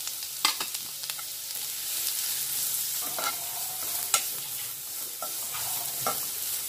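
Grated carrot sizzling in hot oil in a nonstick kadai, with a metal spatula scraping and knocking against the pan as it is stirred, in short strokes over a steady hiss.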